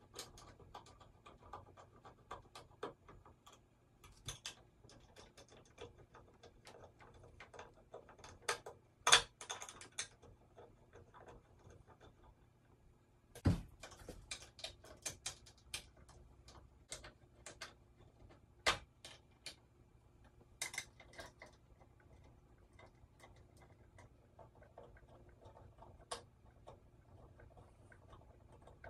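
Scattered clicks, ticks and knocks of hand tools and metal parts on a wooden drum carder as its bolts are tightened. The sharpest clacks come about nine seconds in, and a heavier knock follows around thirteen seconds.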